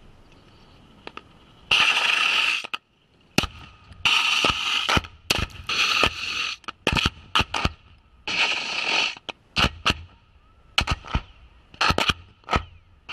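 Munition strikes on and around a target tank: sharp cracks and several separate bursts of crackling, spraying noise, each about a second long, as gravel and debris are thrown up close to the microphone, the first about two seconds in.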